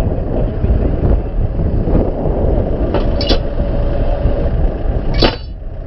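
Tractor engine running steadily, powering a tractor-mounted hydraulic post driver, with two sharp metallic clanks about three and five seconds in.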